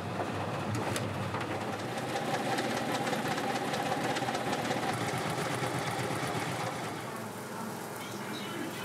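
Noodle-shaping machine running: its motor and screw auger make a steady mechanical hum with a fast, even rattle as dough is fed through, easing a little near the end.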